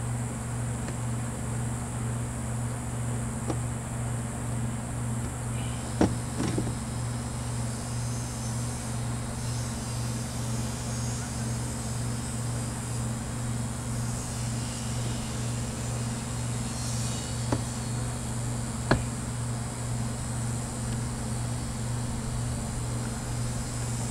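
Steady low machine hum with a slight, even pulsing, broken by a few light knocks and taps from objects handled on a table, the loudest about six seconds in.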